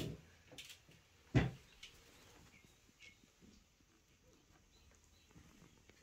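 Two dull thumps, one at the start and a louder one about a second and a half in, then a quiet room with a few faint bird chirps from outside.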